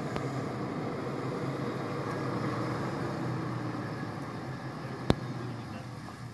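Lifted Toyota Tacoma pickup's engine running at a low, steady crawl as the truck climbs a dirt mound, a continuous low drone. There is one sharp knock about five seconds in.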